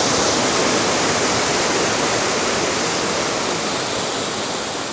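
Waterfall: a steady rush of falling water that fades slightly toward the end.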